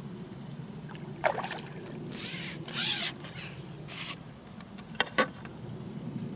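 Splashing water from a hooked carp thrashing at the surface, in several bursts, the loudest about two to three seconds in, followed about five seconds in by two sharp clicks.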